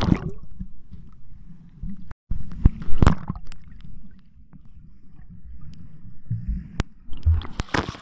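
Muffled sound of a camera held underwater in the sea: a low rumble of moving water with sharp knocks and clicks from handling, the loudest about three seconds in. Near the end the camera breaks the surface, and brighter splashing comes in.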